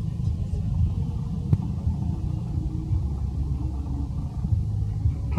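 Wind buffeting the microphone in a steady, uneven low rumble, with one sharp click about a second and a half in.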